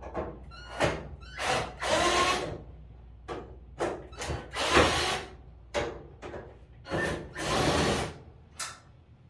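A series of about a dozen short, uneven scraping and rubbing noises, some under half a second and some nearly a second long, over a faint low hum.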